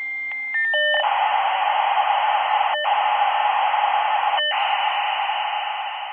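Dial-up modem handshake. A steady high answer tone broken by regular clicks is followed by a few short tones, then a band of hissing static with two brief dropouts that fades toward the end.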